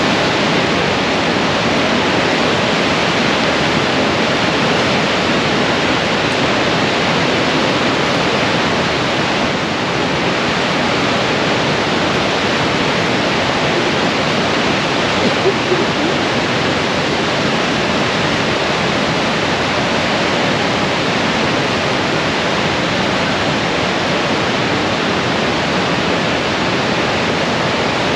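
Loud, steady rushing of whitewater in the Niagara River rapids above the American Falls.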